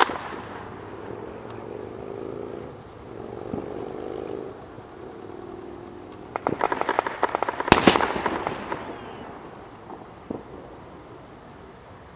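Fireworks going off: a sharp bang at the start, then a rapid string of cracks about six seconds in that builds to one loud bang and trails off in crackling, with a single smaller pop a couple of seconds later.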